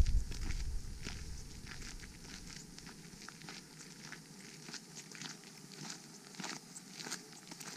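Footsteps of several people walking on a gravel path, a steady irregular crunching of boots on loose stones. A low rumble at the start fades out within the first couple of seconds.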